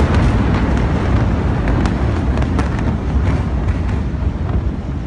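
Deep, continuous rumble of a massive warehouse explosion, with scattered sharp pops and crackles, slowly fading.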